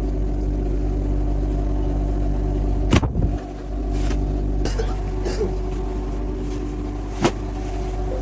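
Cardboard factory machinery running with a steady, loud low hum. It is broken by a sharp knock about three seconds in and another near the end.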